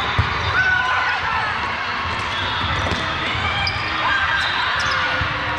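Volleyballs bouncing and thudding on a gym floor amid the steady murmur of players and spectators in a large hall.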